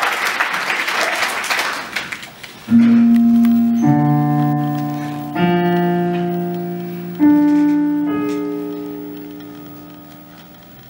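Applause dies away over the first two seconds or so, then a piano plays five chords, each struck and left to ring and slowly fade.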